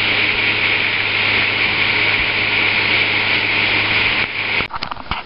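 Boat motor running steadily under way: a constant low hum under a loud hiss. It cuts off about four seconds in, and a few sharp clicks follow.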